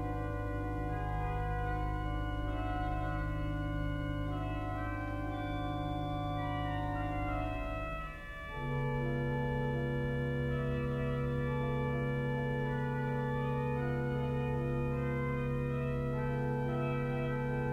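Pipe organ playing slow, sustained chords over long-held bass notes, with quieter upper voices moving above. About eight seconds in the sound briefly dips and the harmony shifts to a new chord on a lower bass note.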